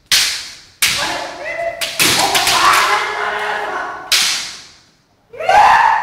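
Kendo sparring: bamboo shinai strikes cracking four times, the fencers' kiai shouts between them and again near the end, all echoing in a large hall.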